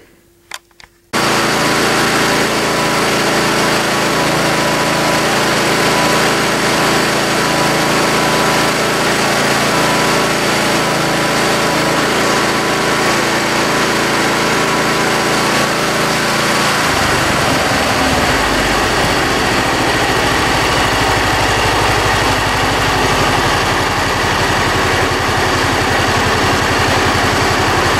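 Briggs & Stratton 20 hp V-twin engine on a zero-turn mower starts about a second in and runs steadily at full throttle, around 3,300 rpm. About 17 seconds in it is throttled down and settles into a steady low idle near 1,500 rpm. It is a freshly swapped replacement engine, running smoothly.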